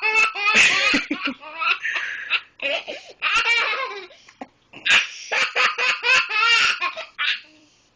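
A small child laughing hard in long runs of repeated laugh bursts, pausing briefly a few times between fits.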